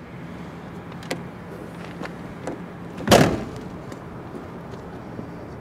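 Boot lid of a 1997 Nissan Skyline GT-R R33 being shut: one loud slam about three seconds in, after a couple of light clicks, over a steady low hum.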